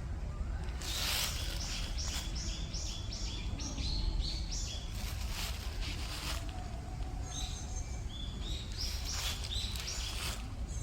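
A small songbird singing two runs of quick, high whistled notes, one about a second in and another near the eight-second mark, over a steady low rumble with a few brief rustling swishes.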